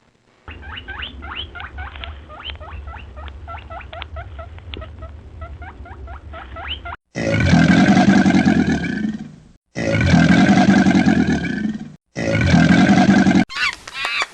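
Recorded animal calls: a rapid run of short, high, upward-sliding squeaks for about six seconds, then three loud, drawn-out calls, each cut off sharply and each about one to two and a half seconds long.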